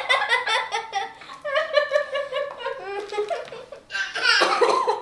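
Several people laughing together in repeated bursts, with a short lull a little after the middle.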